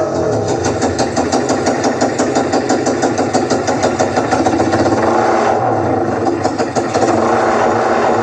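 Engine-like sound played loud through a large outdoor concert sound system: a fast, even pulsing like a revving motor, used as a sound-test effect between music tracks.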